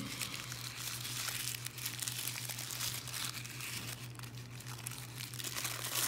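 Wrapping around a plant cutting being crinkled and torn open by hand, with a steady run of small crackles and rustles.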